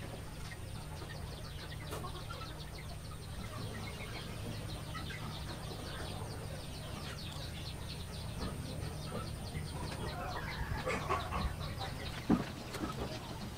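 Chickens clucking in the background over a steady low rumble. A few sharp knocks and clinks come near the end as food skewers are set on a wire grill rack.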